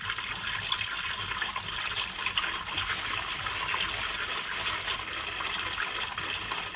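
Engine oil draining in a steady stream from the sump-plug hole of a Mitsubishi Triton's 4N15 2.4-litre turbo diesel, splashing into a drain tray. The oil is still running freely, not yet down to a drip.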